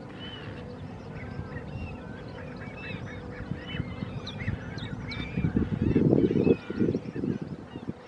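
A flock of gulls calling again and again, many short rising and falling cries overlapping. Underneath is a low rumble that swells loudest a little past the middle.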